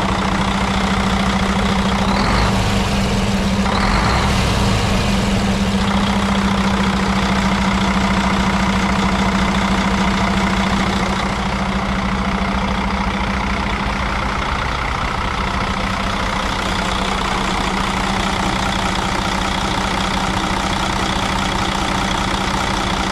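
2007 Sterling LT9513 quad-axle dump truck's diesel engine idling steadily, heard close to the open engine bay. It gets slightly quieter about halfway through.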